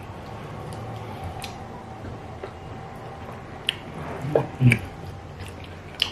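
Close-up eating sounds of fufu with light soup eaten by hand: wet chewing and lip smacks, with soft squishing of the food and a few sharp mouth clicks, most of them in the second half.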